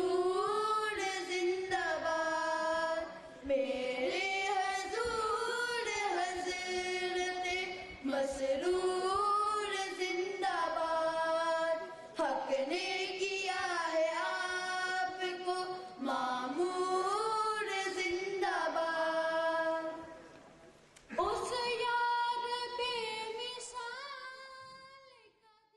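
Unaccompanied boys' voices singing in long, held phrases of about four seconds each, with short breaks between them. A longer pause comes about twenty seconds in, then one more phrase that fades out at the end.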